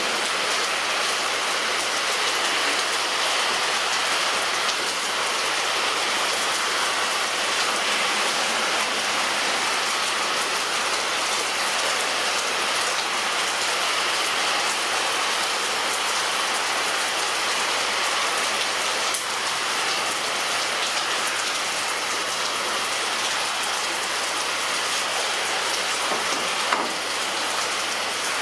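Heavy rain falling on a roof: a steady hiss with many individual drops ticking through it, and one slightly louder drop hit near the end.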